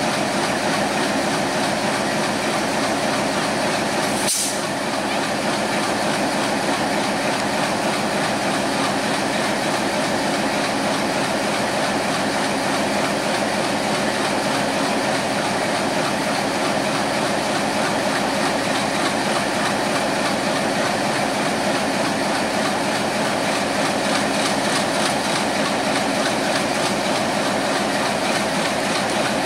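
Steady drone of an idling diesel locomotive, with one sharp click about four seconds in.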